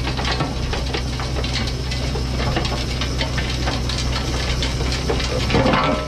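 New Holland L220 skid steer's diesel engine running steadily under load while its hydraulic rototiller's tines churn through soil, clods and stones, a dense crunching and rattling over the engine. The crunching gets louder near the end as the machine comes closer.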